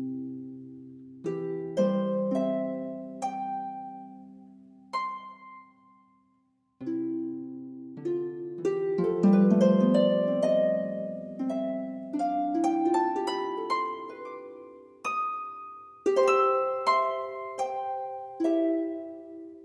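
Background music: a gentle melody of plucked notes, each ringing and fading away, with a short break about six seconds in.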